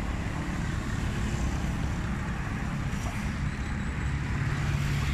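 Steady street traffic noise with the low hum of a running vehicle engine.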